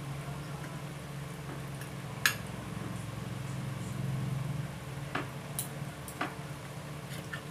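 Fork and spoon clinking and scraping against a plate. There is one sharp clink about two seconds in and several lighter ones in the last few seconds, over a steady low hum.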